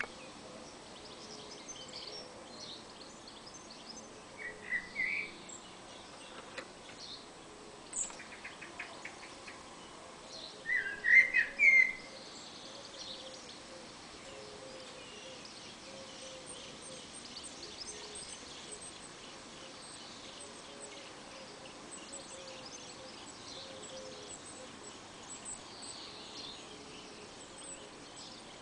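Male common blackbird singing: two short, loud fluty warbled phrases, about four seconds in and again about eleven seconds in, over faint high chirping from other birds.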